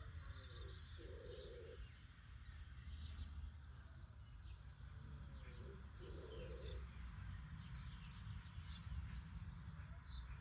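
Small birds chirping in short high notes throughout, with a lower bird call repeating about every five seconds over a steady low rumble of outdoor background noise.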